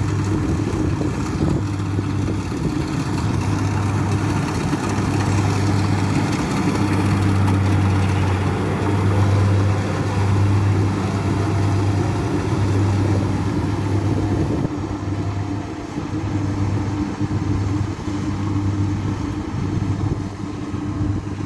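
Kubota DC60 combine harvester running under load while cutting and threshing rice: a steady engine and machinery drone with a deep hum. It eases slightly in the second half as the machine moves off.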